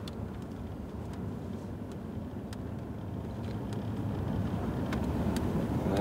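Vehicle driving along a snowy road, heard from inside the cab: a steady low rumble of engine and tyres that grows a little louder toward the end, with a few faint clicks.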